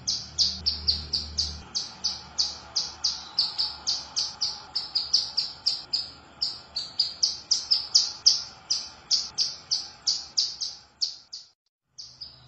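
Female ciblek gunung, a mountain prinia, calling to a male: a fast, steady run of short, sharp, high chirps, about three a second, with one brief break near the end.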